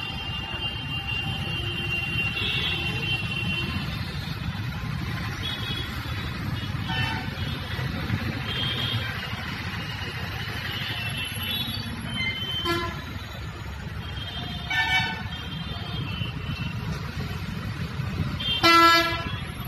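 Steady city traffic on a wet road: engines and tyre noise, with short vehicle horn toots several times. The loudest is a strong horn blast near the end.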